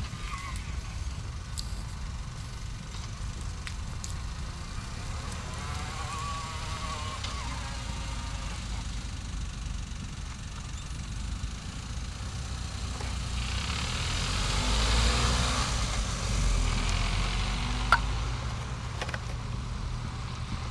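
Smart Fortwo small car pulling away and driving off down a street, its engine and tyre noise swelling to its loudest about three quarters of the way through and then easing as it moves off. A single sharp click near the end.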